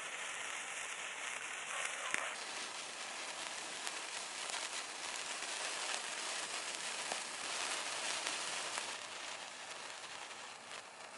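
Hand-held sparklers fizzing with a steady, dense crackle, over a crackling campfire.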